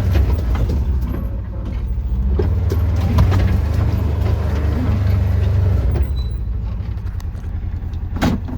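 A vehicle's engine running with a steady low rumble that eases about six seconds in, followed by a sharp knock near the end.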